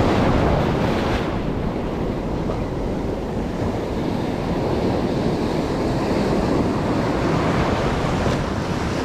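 Ocean surf breaking and washing over a shallow rock reef, with wind buffeting the microphone. The wash is loudest in the first second or so, then settles to a steady rush.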